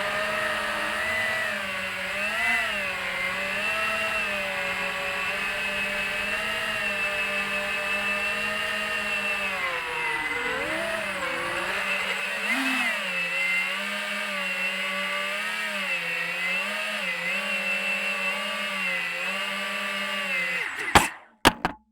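FPV racing-quadcopter motors and propellers buzzing in flight, the pitch rising and falling as the throttle changes. Near the end the sound cuts off suddenly with a few sharp knocks.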